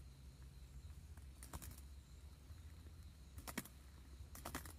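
A large bug batting against the hanging tent light and tent fabric, making faint clicking taps in quick clusters about a second and a half in and twice near the end, over a low steady hum.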